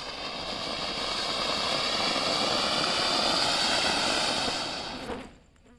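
Medium-sized Ashoka colourful anar (flower-pot fountain firework) spraying sparks with a steady rushing hiss that builds and then cuts off fairly suddenly a little after five seconds in, as the fountain burns out.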